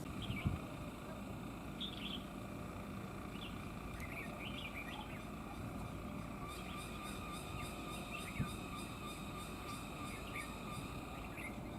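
Red-whiskered bulbuls giving short, scattered chirping calls over a steady outdoor background hiss. A fast, high ticking joins about halfway through, and two dull thumps fall just after the start and about eight seconds in.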